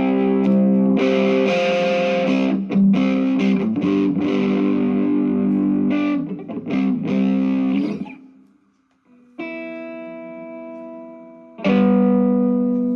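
Distorted electric guitar played through a small modelling amp into a 10-inch speaker cabinet: chunky riffs and chords, then a short stop about eight seconds in. A single chord then rings out and fades before the distorted chords start again near the end.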